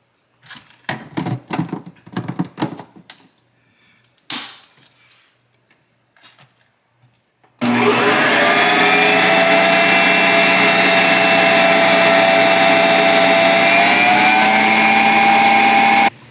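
Ninja Creami Breeze ice cream maker re-spinning a pint of frozen ice cream base after milk was added to loosen a crumbly first spin. First a series of clicks and knocks as the pint is handled and locked in, then about halfway through the motor starts with a loud, steady whine, its pitch stepping up slightly a little before it cuts off suddenly near the end.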